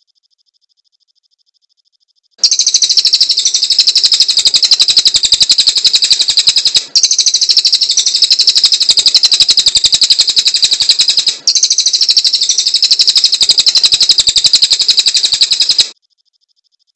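Cililin songbird singing a loud, very rapid, high-pitched chattering trill, starting about two seconds in and running for about thirteen seconds with two split-second breaks.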